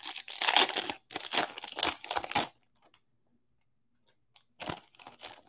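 A Donruss football trading-card pack's wrapper being torn open and crinkled, in a run of noisy rips over the first two and a half seconds. A few brief rustles follow near the end.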